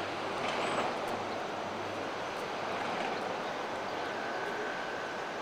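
Steady outdoor background noise with a low hum that fades out about two seconds in, and a faint high tone near the end.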